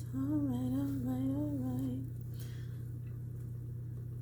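A woman singing a slow, wavering melody to herself, with no words heard, which stops about halfway through. A steady low hum runs underneath throughout.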